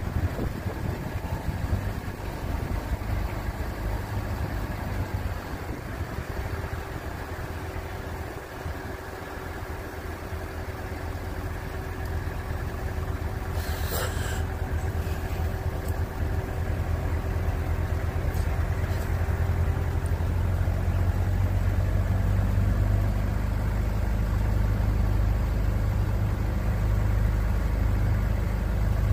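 Engine running steadily with a low rumble that grows louder through the second half. There is one sharp click about halfway through.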